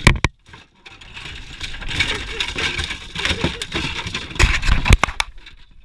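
Irregular knocks and thumps on a small boat's deck, a sharp pair at the start and a quick cluster near the end, with steady wind and water noise in between.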